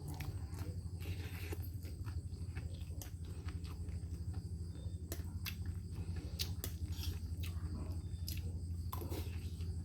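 Crickets chirping steadily, over a low steady hum and scattered sharp clicks.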